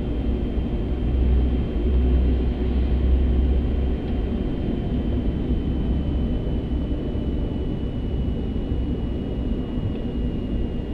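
Airbus A380 flight-deck ambience while taxiing: a steady low rumble of engines and airflow, heavier from about one to four seconds in, with a faint steady high whine above it.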